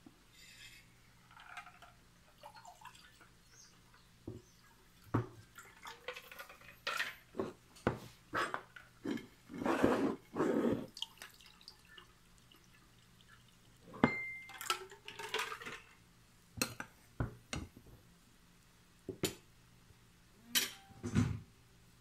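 Spoons and forks clinking and knocking on ceramic serving dishes and glass as food is served, in many short irregular clinks. About halfway through, tea is poured from a flask into a drinking glass.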